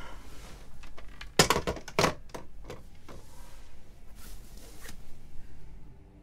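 Clunks and clatter of a corded telephone handset being put down, loudest a little under a second and a half in and again at about two seconds. Bedding rustles and a few smaller knocks follow as a man lies back down on his pillow.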